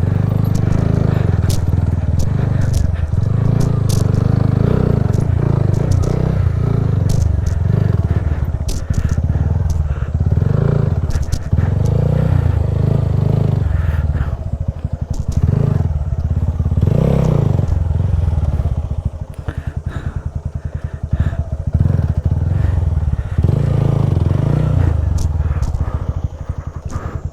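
TVS Apache RTR 200's single-cylinder engine running at low speed, rising and falling as the motorcycle is worked over rough, rocky ground, with scattered sharp clicks and knocks of stones and gravel.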